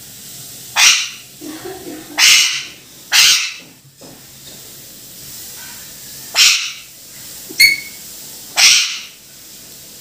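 Alexandrine parakeet giving five short harsh squawks at uneven intervals, with one brief high whistle-like chirp between the last two.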